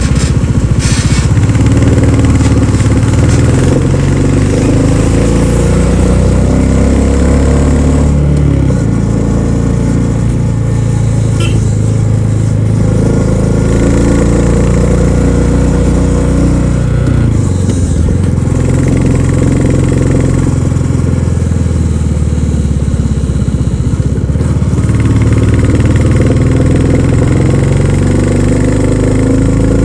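2024 Royal Enfield Classic 350's single-cylinder engine thumping through its stock exhaust under way. The note climbs and falls several times, with short drops where the throttle or gear changes.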